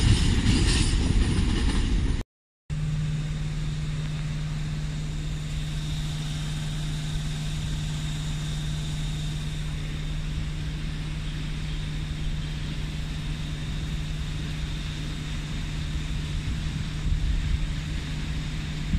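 Loud train running noise that breaks off about two seconds in. It is followed by a locomotive standing and running with a steady low hum and a faint high whine.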